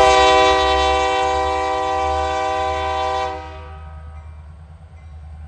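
EMD SD60M diesel locomotive's multi-chime air horn sounding one long, loud blast as a chord, cutting off a little over three seconds in. The low rumble of the passing train carries on underneath.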